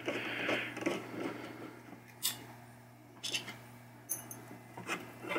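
Screwdriver backing out the screws of a pinball machine's chime box, metal on sheet metal: a short faint scraping at first, then a few separate light clicks.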